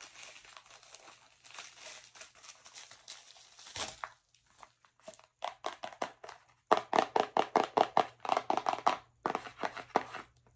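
Soft crinkling of packaging, then, from about five seconds in, long fingernails tapping quickly on a small cardboard product box, about six or seven taps a second.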